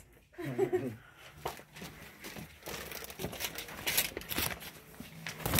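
Paper being handled, crinkling and rustling in a run of small irregular crackles and clicks.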